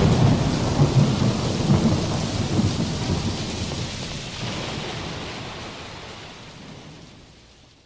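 Recorded thunderstorm sound effect: a sudden loud clap of thunder that rumbles on over steady rain, the whole fading out slowly.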